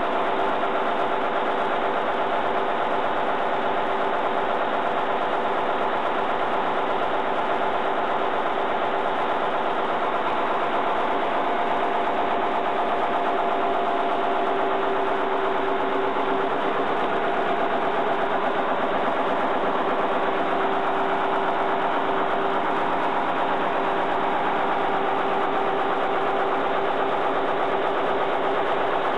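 1951 McLaren four-cylinder diesel engine driving a Brush 55 kW generator set, running steadily with a fast, even beat and a steady hum.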